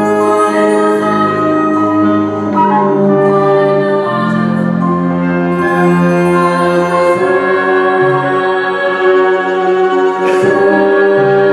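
Symphony orchestra and choir performing live, with full sustained chords that change every second or two.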